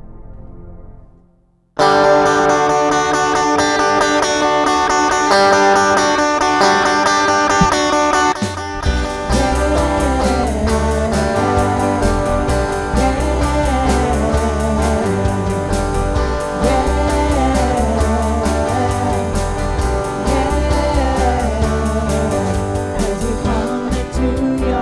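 A soft keyboard passage fades out, then a worship band's song starts abruptly; bass and drums come in about nine seconds in, and a singing voice follows.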